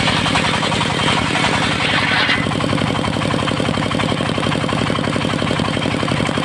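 Portable circular sawmill running steadily while its blade saws teak into boards; the hiss of the cut stops about two seconds in, and the engine keeps running.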